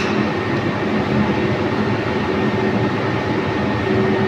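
Steady background hum with a few faint steady tones and no distinct clicks or knocks.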